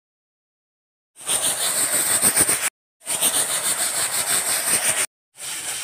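Aluminium pressure cooker's weight valve whistling, a loud hiss of escaping steam. It comes in three bursts that each cut off sharply: about a second in, again at about three seconds, and a third starting near the end. It shows the cooker of soaked rajma and potatoes has reached full pressure.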